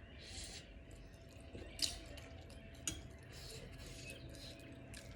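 Eating sounds from a close microphone: chewing and breathy slurps of instant noodles, with two sharp clicks about a second apart, utensils against a plate.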